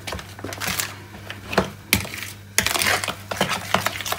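A spoon stirring wet grated lemon filling in a clear bowl: irregular clicks and scrapes of the spoon against the bowl, with a stretch of continuous scraping about two and a half seconds in. A steady low hum underneath.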